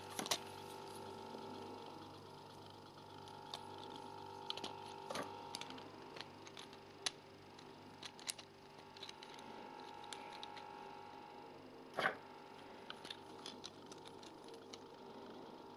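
Small plastic building bricks being handled and pulled apart: scattered faint clicks, the loudest about twelve seconds in, over a faint steady hum.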